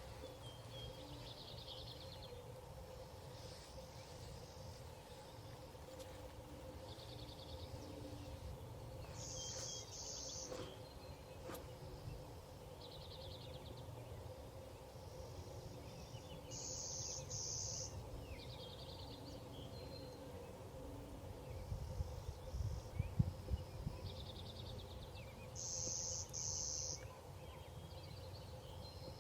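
Outdoor evening ambience of insects and birds calling: short high buzzy trills repeat every few seconds, the loudest coming in pairs three times. Low wind rumble on the microphone rises in the second half.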